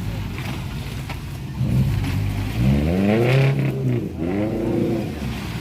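Suzuki Jimny 4x4's engine running under load off-road, revving up and falling back twice in the second half.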